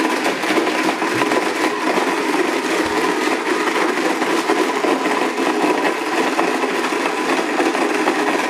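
Countertop blender running steadily as it purées cake, with a constant whine over the churning of the jar.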